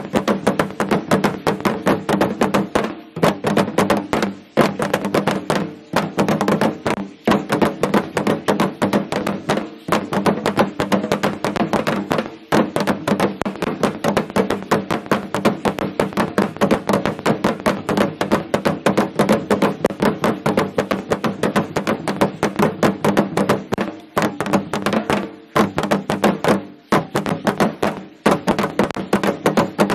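Aztec dance percussion: a fast, steady beat of drum strokes and the dancers' seed-pod ankle rattles (ayoyotes) clattering with their steps, broken by a few short pauses.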